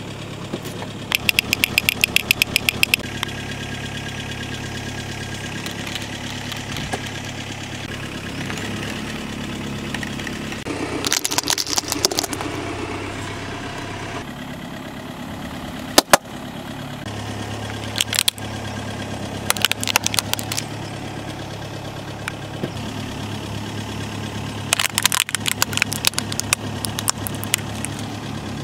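Car engine idling with a steady low hum while a tyre rolls over plastic toys on asphalt, crushing them in about half a dozen bursts of cracking and crunching snaps. One single sharp crack stands out about halfway through.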